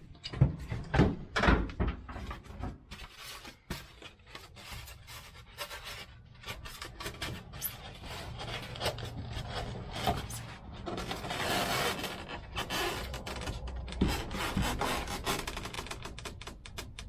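Irregular scraping and rubbing with many knocks and taps, the loudest knocks in the first two seconds and a longer scrape a little past the middle.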